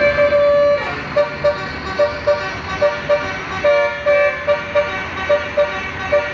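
Indonesian 'telolet' bus horn sounding one held note, then tooting the same note in a quick run of short blasts, mostly in pairs.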